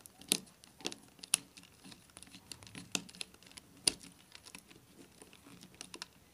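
Irregular small clicks and scrapes of a screwdriver turning the terminal screw of a plastic miniature circuit breaker to clamp a wire, with the breaker's plastic housing creaking in the hand. A few sharper clicks stand out, the loudest about four seconds in.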